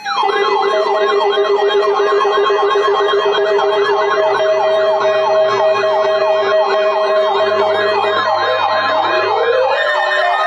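Electronic siren in a fast yelp: a falling wail repeated about three times a second over steady held tones, with a slower rising wail coming in near the end.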